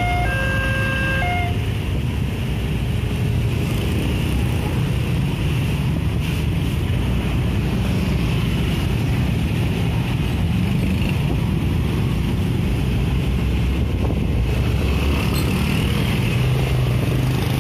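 A railway level-crossing warning alarm sounds in alternating two-tone notes and stops about a second in, as the barrier arms begin to lift. After that, a steady rumble of motorcycle and car engines as the waiting traffic moves off over the crossing, with wind on the microphone.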